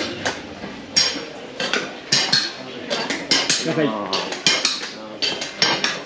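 Repeated sharp metallic clinks and clatter, irregularly spaced, with a faint voice in the background near the middle.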